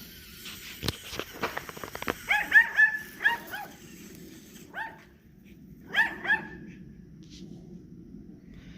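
A dog barking in short, high yaps: a quick run of about five a little over two seconds in, then a single bark, and a pair near six seconds. A string of sharp clicks or knocks comes in the first two seconds.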